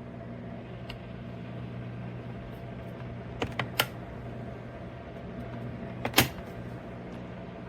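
A steady low hum from a running appliance, with three quick clicks a little after three seconds in and a louder single click about six seconds in.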